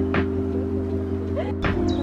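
Background music: sustained, held chords with a sharp beat about every second and a half, and a chord change near the end.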